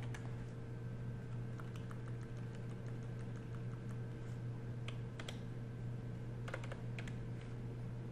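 Sparse keystrokes on a computer keyboard, a few scattered clicks in small clusters, as text is deleted and retyped. A steady low hum runs underneath.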